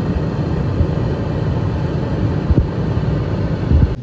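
Gas furnace running steadily with its burners lit, a continuous low rumbling noise with a couple of low thumps near the end. It sounds normal: the furnace is working again on its replacement board.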